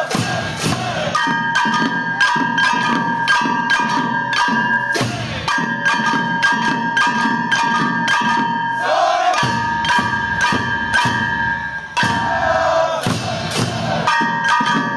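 Hand-held kane gongs and small hand drums beaten by a procession of dancers, a steady beat of sharp metallic strikes with a ringing tone hanging between them. The gong ringing breaks off a few times, about five, nine and twelve seconds in, while brief chanted calls are heard.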